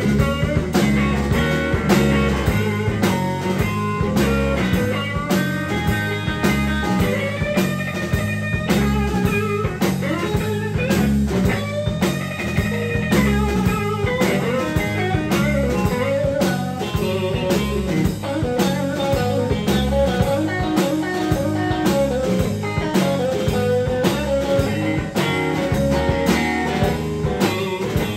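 Live blues-rock band playing an instrumental passage on electric guitars and a drum kit, with no singing. The lead electric guitar plays held notes that bend upward, over a steady drum beat.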